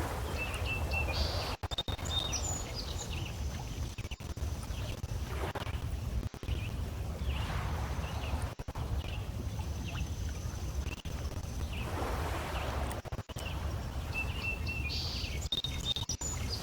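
Small lake waves washing against shoreline stones, swelling and fading every few seconds, over a steady low rumble. Birds chirp briefly about a second in and again near the end.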